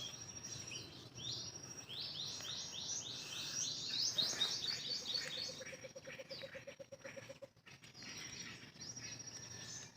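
A small bird calling: a quick run of short, falling chirps, about four a second, for a few seconds and then stopping.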